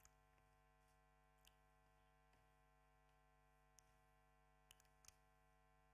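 Near silence: a faint steady electrical hum with a few faint, brief clicks.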